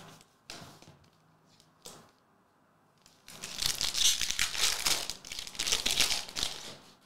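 A foil trading-card pack wrapper (22-23 Parkhurst Champions hockey) being torn open by hand, a dense crinkling, crackling rustle lasting about three and a half seconds from a little before halfway. Before it, a few light clicks of cards being handled.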